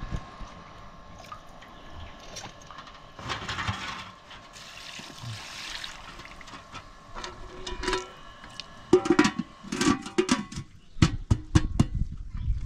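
Water splashing and pouring, followed by a run of sharp knocks and clatters, loudest near the end.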